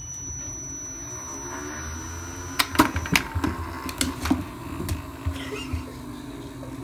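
iFetch automatic ball launcher running with a steady whir and a thin high whine that cuts off about three seconds in. A run of sharp knocks and taps follows as the small tennis ball is launched and played with.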